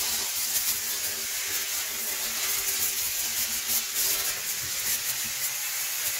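Kärcher steam cleaner blowing a continuous jet of steam from its nozzle, a steady hiss.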